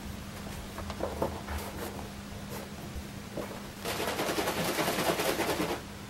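A mountain-bike wheel and tubeless tyre being handled: scattered knocks and rubbing, then a dense rattling clatter for about two seconds near the end.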